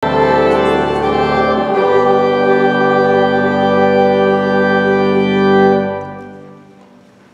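Church organ holding full, steady chords, the bass note changing about two seconds in; the final chord is released about six seconds in and dies away in the sanctuary's reverberation.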